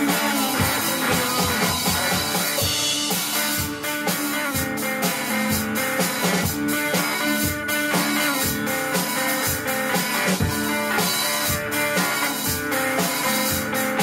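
Small rock band playing live: electric guitar and a second guitar over a drum kit with a steady beat, in an instrumental passage with no singing.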